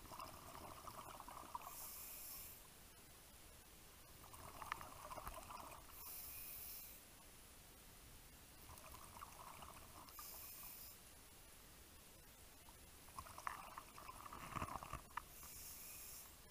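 Scuba diver breathing through a regulator underwater: about four breaths, each a burst of exhaled bubbles followed by a short hiss of the inhale.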